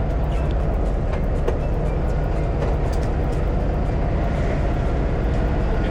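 A fishing boat's engine running with a steady low rumble, with a few faint clicks and knocks on board.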